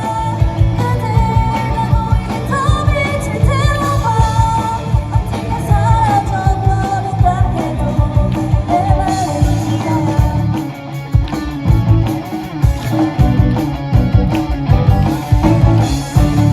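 Live rock band playing, with a lead vocal singing the melody over drums, bass and guitar. The voice drops out about two-thirds of the way through, leaving the band playing on.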